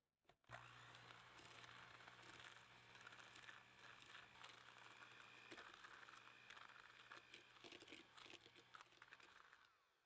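Electric hand mixer running, its beaters churning butter with brown sugar and salt in a bowl: a steady motor hum under gritty scraping. It starts about half a second in and winds down just before the end.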